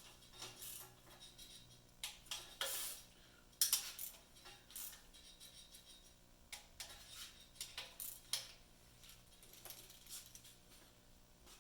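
Scattered light metal clicks and clinks of a 3/8-inch ratchet and socket on the oil pan bolts as they are run in and tightened, with a few quick runs of clicks.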